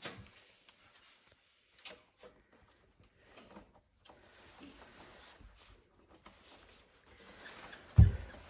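Scattered faint clicks and light knocks of objects being handled, with one heavy low thump near the end.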